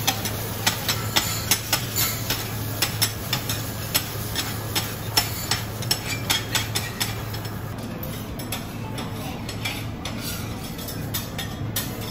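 Metal spatula tapping and scraping on a stainless flat-top griddle as an omelette is cooked: repeated sharp clicks, several a second for the first half, sparser later, over a steady low hum.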